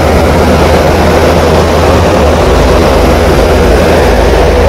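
A large trailer-mounted generator set's engine running steadily, a loud, even low drone with a constant hum above it.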